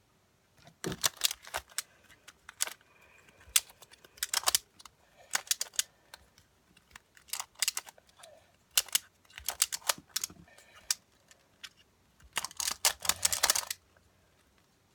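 Rubik's cube being turned by hand in quick bursts of plastic clicking, each run of turns followed by a short pause, with the longest, densest run near the end.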